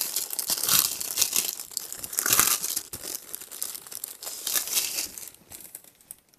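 Clear plastic packaging bag crinkling and rustling in uneven bursts as hands pull a folded fabric cloth out of it, dying away near the end.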